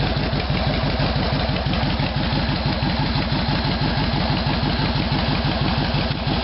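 Kawasaki Vulcan 2000's 125-cubic-inch V-twin idling steadily through Hard-Krome 3-inch straight pipes with Thunder baffles in place of the stock baffles: a really loud, even pulsing exhaust.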